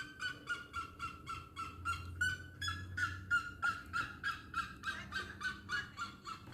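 A bird calling in a fast, even series of short repeated notes, about five a second.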